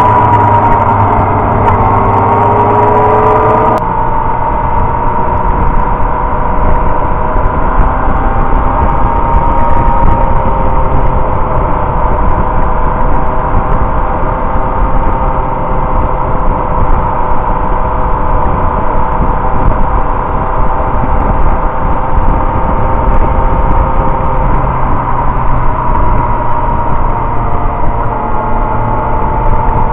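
Inline-four sport motorcycle engine running at a steady cruise, heard from the bike itself with wind rush underneath. The engine note changes abruptly about four seconds in, then holds a steady pitch, lifting slightly near the end.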